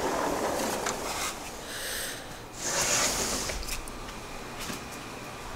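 Rubbing and rustling handling noise on a handheld camera's microphone as it is carried, with a brief louder hiss about three seconds in.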